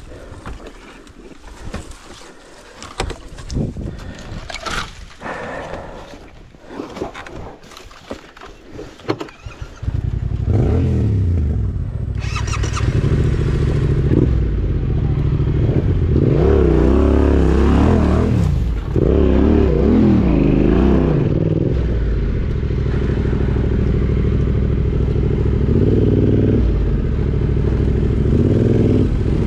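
Scattered knocks and scrapes, then about ten seconds in a motorcycle engine comes in suddenly. It is revved up and down a few times and then runs steadily.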